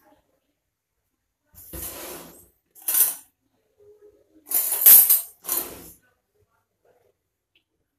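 Kitchenware clinking and clattering, handled off to one side, in four short bursts; the loudest comes about five seconds in.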